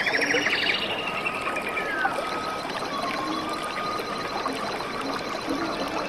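Water from a small waterfall running steadily, with birds calling over it. A fast trill lasts about a second at the start, followed by whistled notes and a faint, high, thin pulsing note.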